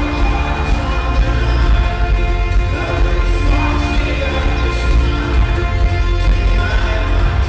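Folk-rock band playing live, recorded from inside an arena crowd: loud, dense and bass-heavy, with an upright double bass played among the instruments.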